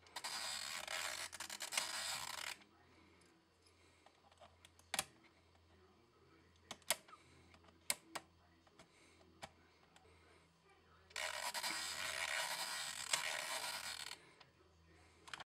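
Plastic dial of a Theben THE64B-20 analogue time switch turned by hand, giving a fast dense clicking rattle for about two and a half seconds at the start and again for about three seconds near the end. In between come single sharp clicks as the segment pins on the dial ring are pushed with a small pointed tool.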